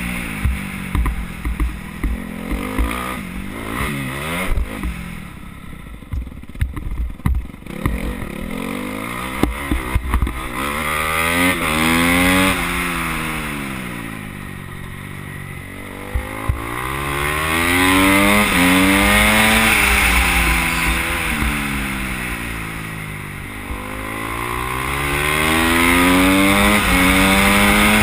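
Onboard sound of a supermoto-style dirt bike's engine being raced round a track. The revs climb and step up through the gears on the straights, then fall away into the corners, with wind noise on the microphone at speed. In roughly the first ten seconds, on the dirt section, the engine sound is rougher and broken by sharp knocks and clatter.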